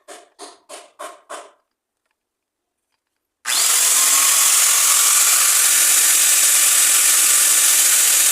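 A rhythmic ticking beat, about three pulses a second, stops after a second and a half. A couple of seconds later an electric angle grinder starts abruptly and runs loudly and steadily with a bright hiss.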